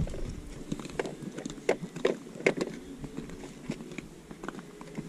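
A run of irregular light clicks and knocks, clustered about a second and a half to two and a half seconds in, over faint background noise.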